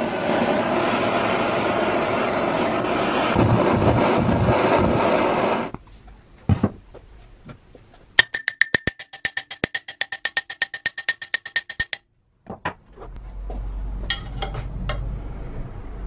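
Canister gas blowtorch flame hissing steadily as it heats a rusted saw arbor nut, then cutting off about six seconds in. A few seconds later comes a rapid, even run of sharp clicks, about nine a second, lasting about four seconds.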